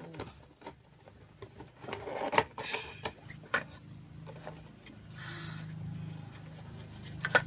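Cardboard box and packaging being handled while unpacking: scattered clicks and knocks with bouts of rustling, over a steady low hum.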